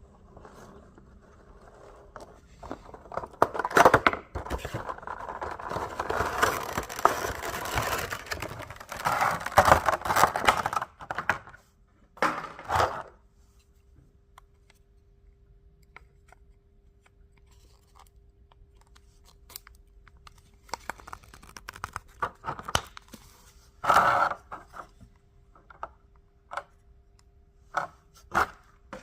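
Packaging being torn open and handled: tearing, scraping and crinkling of a Funko Pop box and its wrapping. The busiest stretch comes in the first half, followed by a short pause and then a few scattered rustles and clicks.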